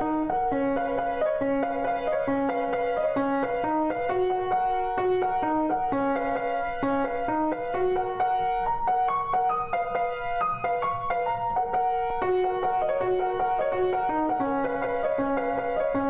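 Grand piano played live: a simple melody over a repeating pattern of lower notes, running on without a break.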